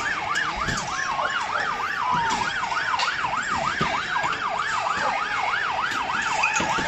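Police van siren in a fast, rapidly rising and falling yelp, about three sweeps a second, over crowd noise with a few sharp knocks.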